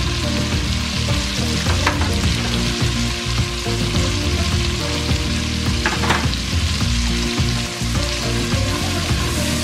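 Chopped onions sizzling as they fry in oil in a stainless steel pot, stirred with a utensil that scrapes the pot a couple of times.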